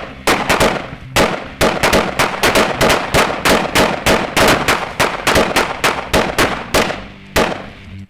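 Rapid gunfire: a long string of sharp shots, about three to four a second, each ringing out briefly, fired into a refrigerator.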